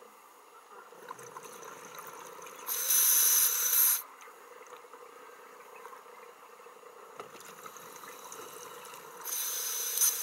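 Scuba diver breathing through an open-circuit regulator underwater. Two exhalations are heard as loud bubbling rushes of about a second each, about three seconds in and near the end, each after a quieter inhalation hiss. A faint steady hum runs underneath.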